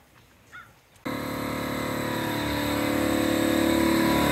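Air compressor motor kicking on suddenly about a second in and running with a steady hum, growing slowly louder as it builds pressure.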